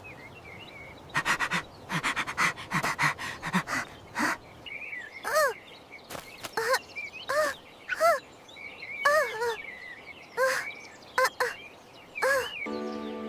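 Cartoon sound effects: a quick flurry of taps, then a series of short squeaky animal calls, each rising and falling in pitch, with faint birdsong behind. A held musical chord comes in near the end.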